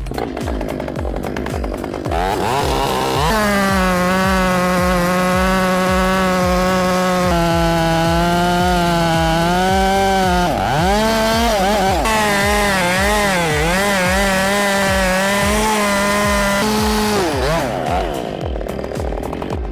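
Two-stroke chainsaw revving up about three seconds in and running at high speed, its pitch dipping briefly a couple of times under load in the cut, then dropping back near the end. Music with a steady beat underneath.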